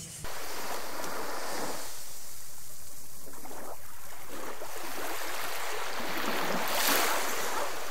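Small waves washing over shallow sand and coral: a steady rush that swells and eases a few times, loudest about seven seconds in.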